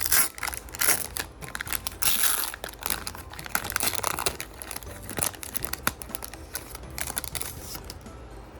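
Foil trading-card booster pack crinkling as it is torn open and handled, with dense irregular crackles that are loudest in the first half.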